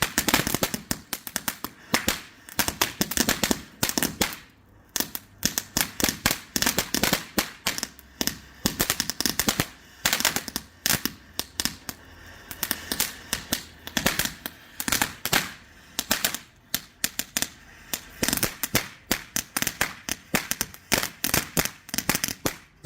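A safe-and-sane crackling firework going off in a dense, irregular string of sharp cracks and pops, several a second, with brief lulls about one and four seconds in.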